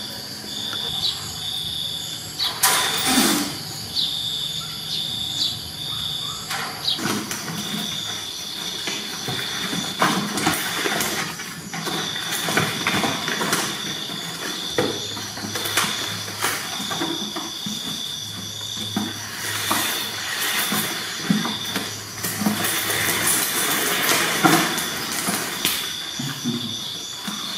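Young kittens mewing and scuffling, over a high, thin chirping that comes and goes in stretches of about a second.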